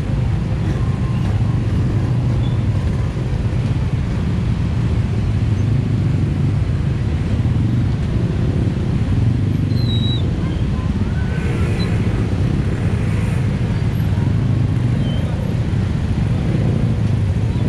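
Dense road traffic of many motorcycles and minivans idling and creeping along: a steady, even low rumble of engines with no break.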